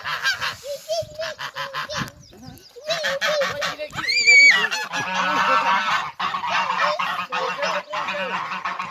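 Geese honking in rapid, overlapping calls, with one louder, higher-pitched call about four seconds in.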